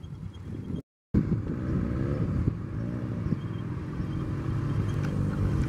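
Motorcycle engines running at low speed, their pitch rising and falling with small throttle changes. The sound cuts out completely for a moment about a second in.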